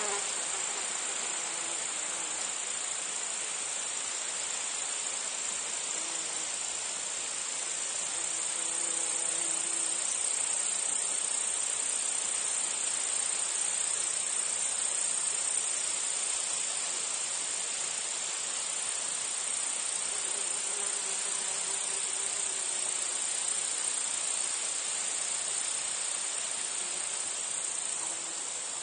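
Meadow insect chorus: cicadas and crickets trilling in a steady, high-pitched unbroken drone, with flies buzzing past briefly a few times.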